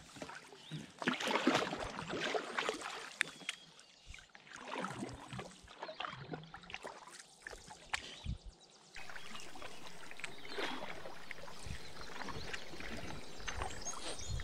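Canoe paddle strokes close by: irregular splashes, drips and gurgles of water off the blade against the hull. About nine seconds in this gives way to a steadier, even wash of outdoor sound.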